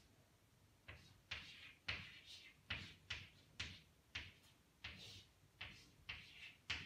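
Chalk tapping and scratching on a chalkboard as a formula is written: a faint run of short strokes, about two or three a second, starting about a second in.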